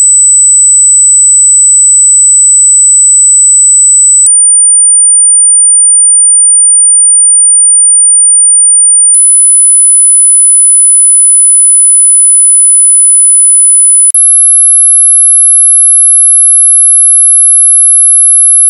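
Hearing-test sine tone, a single very high-pitched steady whistle that steps up in pitch three times, about every five seconds, as the test climbs toward the top of human hearing.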